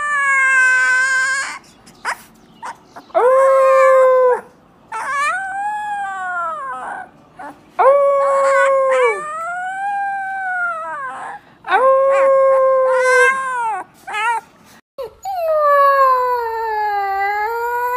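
Husky puppies howling: a young pup gives a string of short, thin howls, each a second or two long that rises and then falls in pitch, with brief pauses between them. After a break near 15 s a second puppy gives one longer howl that wavers and then drops away at the end.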